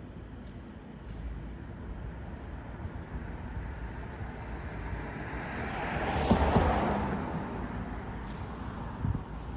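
A motor vehicle driving past: its noise swells over a few seconds, peaks about six and a half seconds in, then fades, over a low steady traffic rumble.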